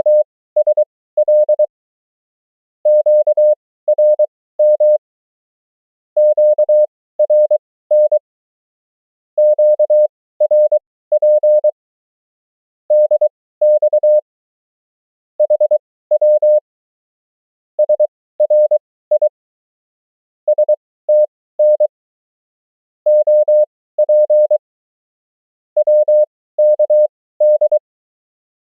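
Morse code (CW) sent as a single steady beeping tone keyed into dots and dashes: common amateur-radio words and abbreviations at 20 words per minute (characters at 23 wpm), with short pauses between each word.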